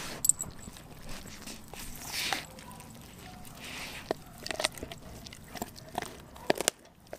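Doberman gnawing on a raw frozen pig's foot: irregular crunches and sharp clicks of teeth on bone, with licking.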